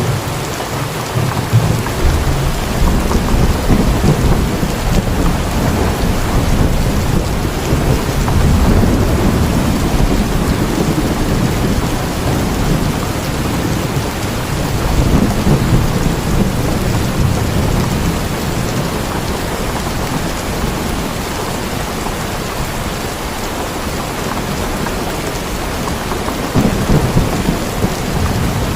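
Steady heavy rain with rolling thunder, a deep rumble that swells and fades in several waves.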